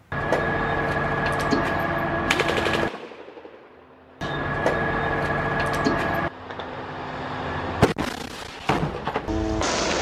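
Automatic gunfire in bursts over a music bed of held tones, in stretches that start and stop abruptly, with a single loud crack about eight seconds in.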